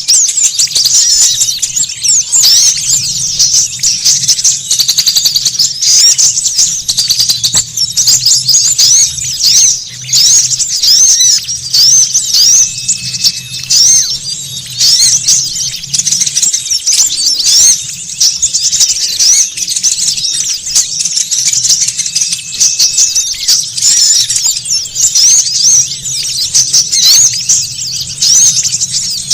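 Dense, continuous chorus of many small songbirds chattering and chirping at once, rapid overlapping high-pitched notes, with a faint low hum underneath.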